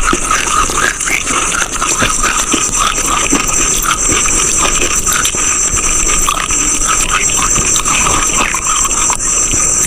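Close-miked crunching and chewing of eating chalk: dense, continuous crackly crunches over a steady high hiss.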